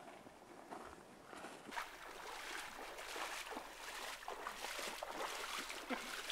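Boots wading through shin-deep water on a flooded forest trail, splashing with each stride. The splashing grows louder as the wader comes closer.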